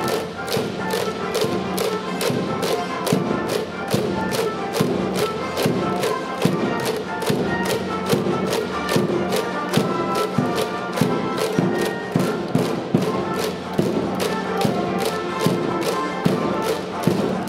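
Background music with a steady beat: sustained pitched instruments over evenly spaced drum strokes, about two or three a second.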